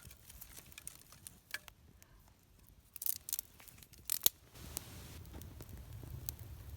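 Small dry sticks clicking and snapping as they are laid on a small campfire, with a few sharp cracks a little past halfway. A low steady rumble sets in near the end.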